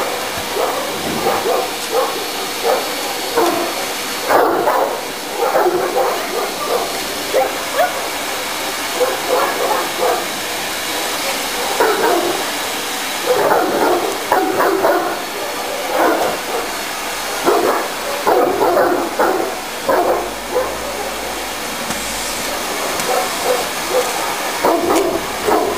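A vacuum cleaner running steadily while a 60 kg Tosa Inu barks at it over and over in short bursts, with some whimpering and yipping among the barks.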